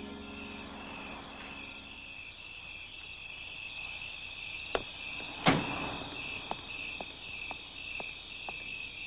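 Crickets chirping steadily. About five seconds in, a car door opens with a click and a sharp clunk, followed by a run of light footsteps on pavement, about two a second.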